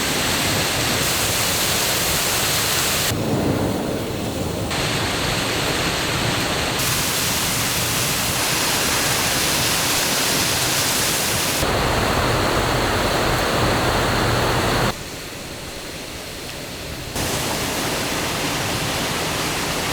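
Rushing water of a waterfall, a steady full-spectrum rush. It changes abruptly in tone and loudness several times and is quieter for a couple of seconds about fifteen seconds in.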